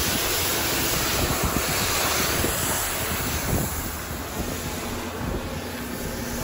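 Pressure-washer wand spraying water onto a car's body panels: a steady hiss of spray that eases a little about halfway through.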